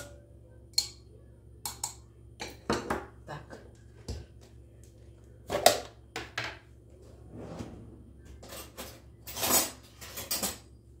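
Handling of kitchen spice containers: glass and plastic jars knocking on the counter and a plastic lid pried off a tub, heard as a series of separate clicks, knocks and short rustles, the loudest about halfway through.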